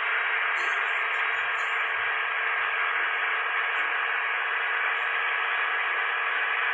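Steady, even hiss of road and wind noise from a moving vehicle, unchanging throughout, with a faint steady hum beneath it.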